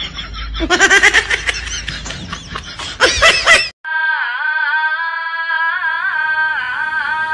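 Loud laughter in quick bursts, then, after a brief cut to silence, a single held musical tone with a slight waver.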